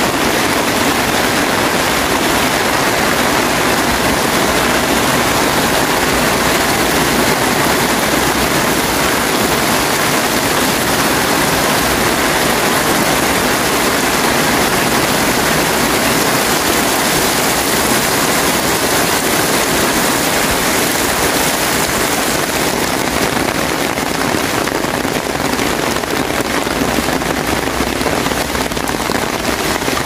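Heavy rain pouring steadily onto a waterlogged paved lane and the plants beside it, a dense, even hiss that eases a little near the end.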